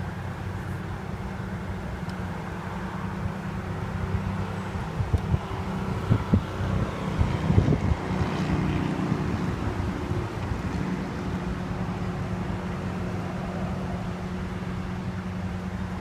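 Steady low hum of a stationary car, with a cluster of irregular knocks and thumps about five to eight seconds in.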